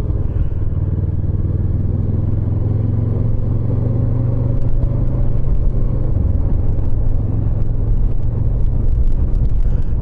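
Motorcycle running on the move, its engine under a steady low rumble of wind buffeting the microphone.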